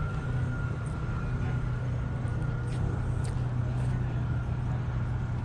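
Steady low mechanical hum with a faint, steady high whine above it and a few light ticks.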